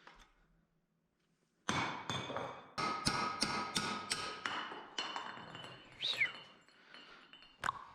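Hand tools striking and clinking against steel suspension parts: a run of sharp metallic blows that ring on between strikes, coming about four or five a second at their quickest, after a second or so of near quiet.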